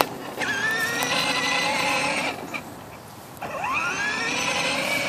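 Battery-powered ride-on toy truck's small electric motor and gearbox whining as it drives. The whine rises quickly in pitch as it starts about half a second in, stops a little past two seconds, then rises again about a second later and runs on.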